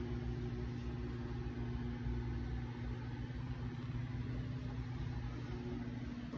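Steady low mechanical hum with a faint even noise above it, unchanging throughout.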